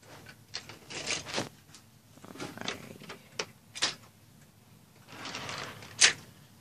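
Handling and movement noises: scattered rustling with about five sharp clicks or knocks, the loudest one near the end.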